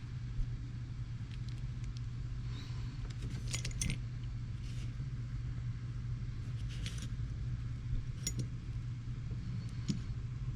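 Scattered small metallic clicks and clinks as a Hi-Capa airsoft pistol's frame and its screw are worked with a small tool, with a short cluster of quick clinks about three and a half seconds in. A steady low hum sits underneath.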